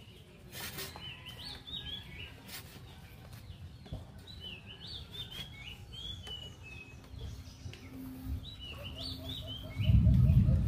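A songbird singing short phrases of quick high chirps, three times, over a few light knocks. About a second before the end a loud low rumble sets in abruptly, with rapid soft ticking above it.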